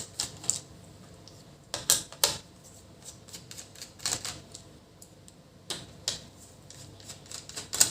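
Irregular small clicks and taps of a screwdriver and plastic parts as an HP ProBook 440 G4 laptop is taken apart. The clicks are a few at a time, with a cluster of louder ones about two seconds in.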